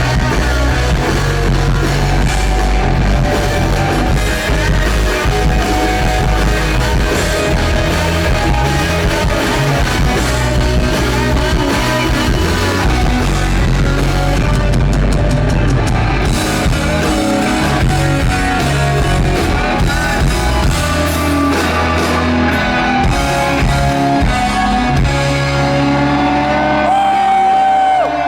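Live rock band playing, with electric guitars, bass and drum kit and a singing voice, as heard through a phone recording in an arena; near the end the low end drops away and a guitar note is held.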